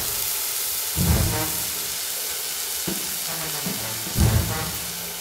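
Food sizzling as it is stir-fried in a hot pan, with intro music and two low bass hits, about a second in and near the end.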